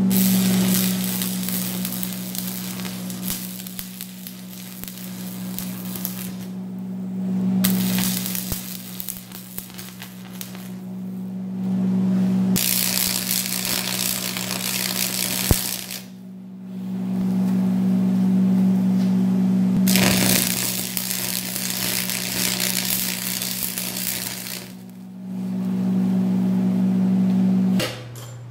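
Stick (arc) welding on steel and galvanized pipe: the arc crackles and sizzles in about five runs of a few seconds each, with short breaks between them. Under it the welding machine gives a steady electrical hum that stops just before the end.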